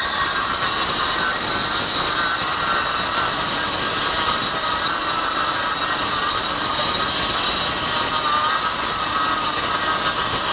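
Kobalt 24-volt 6-1/2-inch cordless circular saw running at full speed and cutting steadily through two stacked half-inch OSB sheets, about an inch deep, with its 24-tooth blade under load.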